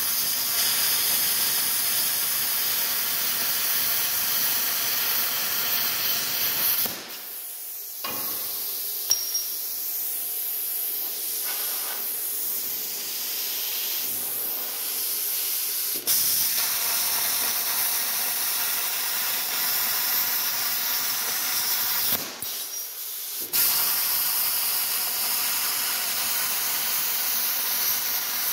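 Bestarc CUT55XP plasma cutter cutting quarter-inch steel plate, turned all the way up: a loud, steady hiss of the arc and compressed air. The arc stops about seven seconds in, leaving a quieter air hiss. It strikes again sharply about sixteen seconds in, with another short break a little after twenty-two seconds.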